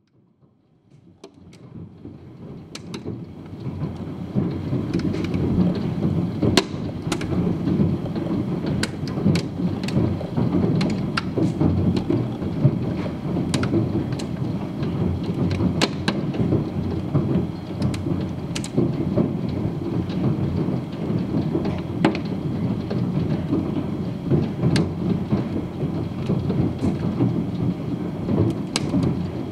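Hail and heavy rain pelting a flagstone patio and lawn: a dense, steady downpour with many sharp clicks of single hailstones striking the stone. It fades in over the first few seconds.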